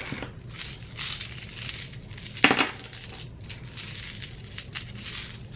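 A necklace of glazed beads, thought to be ceramic rather than glass, rubbed and squeezed between the hands, the beads clicking and clinking against one another in a continuous light rattle, with a louder clatter about two and a half seconds in.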